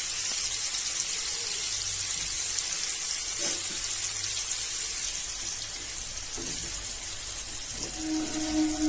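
Cauliflower and spices sizzling in hot oil in a pan just after sour yogurt is added, a steady watery hiss. A steady musical tone comes in near the end.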